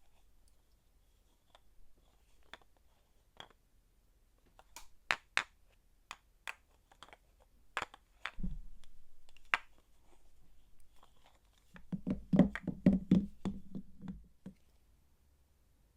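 Bars of soap and their packaging being handled at close range: scattered sharp clicks and taps, a dull thud about halfway through, then a quick run of knocks and low thuds near the end.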